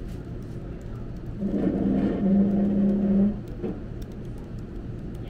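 Laptop keyboard keys clicking as someone types, while a loud, steady machine whir with a fixed pitch sounds for about two seconds in the middle and then cuts off.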